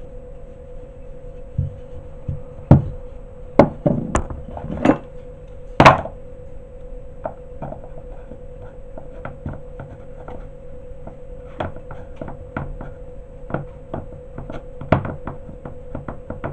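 A wooden rolling pin knocking and thudding on a stone countertop as dough is rolled out, with several sharp thuds in the first six seconds. Lighter taps and clicks follow as the dough disc is handled in a plastic empanada press, over a steady faint hum.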